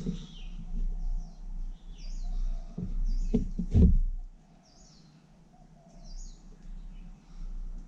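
Small birds chirping repeatedly, short high downward-sliding calls, with a few sharp knocks about three and a half seconds in.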